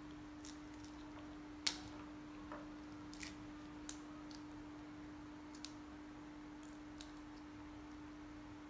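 A baby macaque eating lotus seeds: scattered short, crisp clicks and crunches as seeds and pod are bitten and chewed, the loudest a little under two seconds in. A steady low hum runs underneath.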